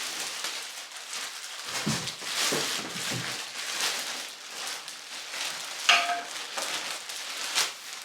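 Plastic packaging crinkling and rustling as it is handled and pulled out of a box, in a dense run of irregular crackles.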